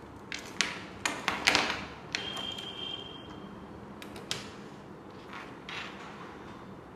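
Plastic clicks and knocks from a Lego fishing-rod model being handled and wound, a cluster of them in the first two seconds and a few scattered later. A faint high steady tone runs for about a second in between.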